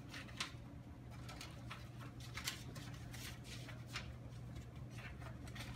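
Faint scattered clicks and taps, irregular, over a steady low hum in a small office room.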